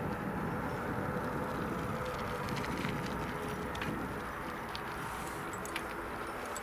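Quest Kodiak 100's single Pratt & Whitney PT6A turboprop running at low power while the aircraft taxis, a steady hum that fades slightly toward the end.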